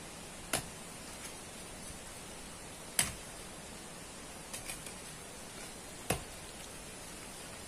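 A hand digging tool striking gravelly sand and stones: three sharp hits a few seconds apart, with a couple of fainter knocks between them, over a steady hiss.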